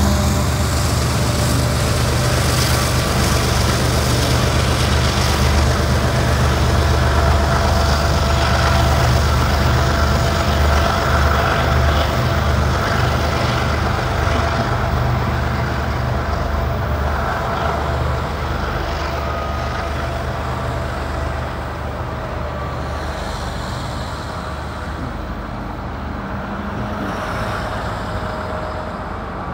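Diesel-electric helper locomotives shoving a heavy freight train up a steep grade under hard pulling: a deep, steady engine drone with wheel and rail rumble. It slowly fades as the locomotives pull away.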